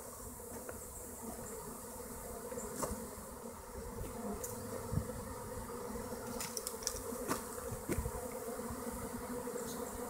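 Honey bee swarm in flight, a steady buzz of many bees as the swarm moves into a hollow tree, with a few brief clicks.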